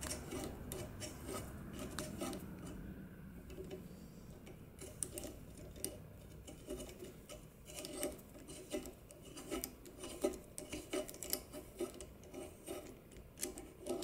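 Small metal-on-metal clicks and scraping, several irregular ticks a second, as a broken bolt remnant is worked out of an exhaust manifold's threaded stud hole with a small punch.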